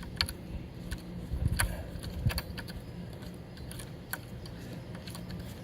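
Scattered light clicks and taps of hand tools and small metal brake parts being handled, over a faint steady low hum.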